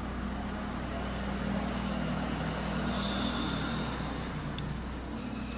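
A motor vehicle passing on a nearby road, its engine hum and road noise swelling to a peak about halfway and then fading, over a steady high drone of insects.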